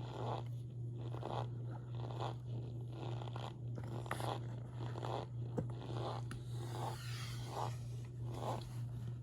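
Cornstarch being chewed: short squeaky, crunchy strokes about once a second, over a steady low hum.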